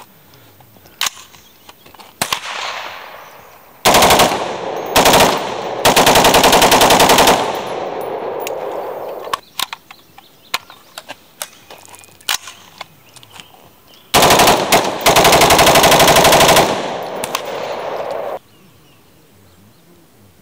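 AR-15 rifle bump-fired with a SlideFire stock in fast bursts that sound like automatic fire: a few separate shots at first, then short bursts about four and five seconds in, a longer burst of about a second and a half, and after a pause two more bursts, the last about two seconds long. Each burst leaves an echo trailing off across the range.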